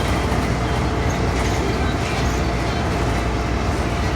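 Steady engine and cabin noise inside a 2015 Blue Bird Vision school bus, a continuous low drone with no breaks.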